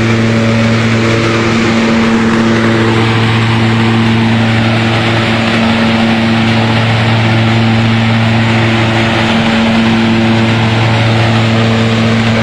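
Hazelnut husking machine (patoz) running steadily: a constant low hum under a loud, even rushing noise.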